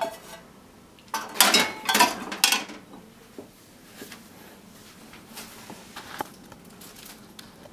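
Kitchen clatter of dishes and utensils being handled: a quick run of sharp knocks starting about a second in and lasting about a second and a half, then a few faint ticks.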